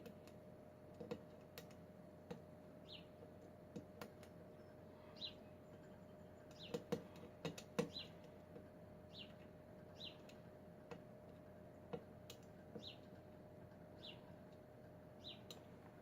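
Faint, irregular clicks of a lock pick and tension wrench working the pins of a Kwikset pin-tumbler lock, with a cluster of louder clicks about halfway. A bird chirps repeatedly in the background over a steady faint hum.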